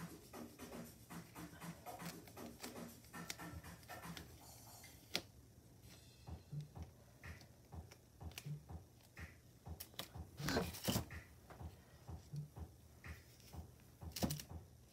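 Handling noises of craft work: duct tape and a silicone mould being handled and pressed down, as scattered light clicks and rustles, with a louder cluster about two-thirds through.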